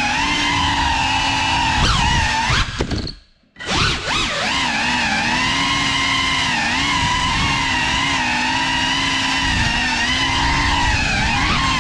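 Motors and ducted props of a GEPRC Cinelog35 3.5-inch cinewhoop quadcopter whining steadily, pitch wavering with the throttle. About three seconds in the sound cuts almost to silence for half a second as the throttle is chopped, then spools straight back up.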